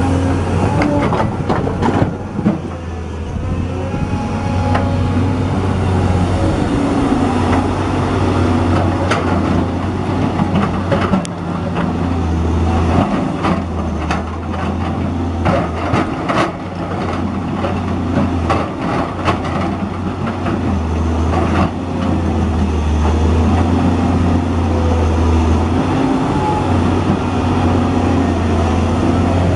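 Volvo EC210B crawler excavator's diesel engine running under working load, its pitch and level swelling and easing as the hydraulics dig, swing and dump. Through the middle come repeated clanks and knocks of the steel bucket against rock and earth.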